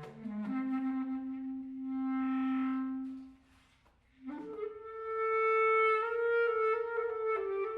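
Solo clarinet playing a contemporary piece. A long low note swells and fades away, then after a short pause a higher note enters about four seconds in and is held, bending slightly in pitch.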